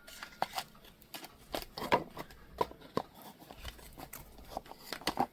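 Pocket lighters being handled: an irregular run of sharp clicks and light knocks, with the loudest about two seconds in, three seconds in and near the end.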